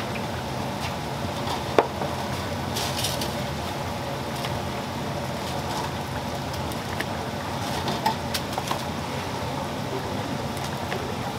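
Deep-fryer oil sizzling under a steady hum of background noise, with a sharp click about two seconds in and a few lighter taps as fried corn dogs are set down on a metal tray.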